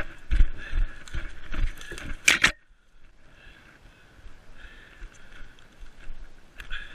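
A runner's footsteps on the forest floor, about two and a half strides a second, with a sharp crackle a little over two seconds in. After that the steps go much quieter.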